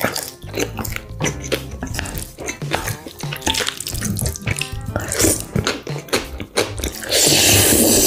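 Close-up wet eating sounds of black bean noodles (jajangmyeon): a string of smacking, squelching clicks as the noodles are chewed, then a loud long slurp lasting about a second, about seven seconds in. Background music plays underneath.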